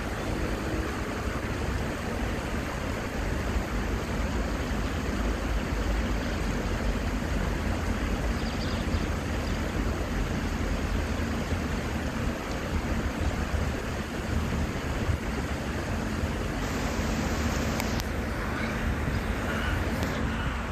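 Steady rushing noise with a gusting low rumble: wind buffeting the microphone over the flow of a shallow stream.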